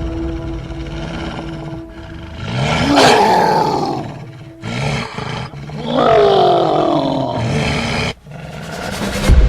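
Two drawn-out animal roar sound effects, a shorter one about three seconds in and a longer one falling in pitch around six to eight seconds, over a low rumble.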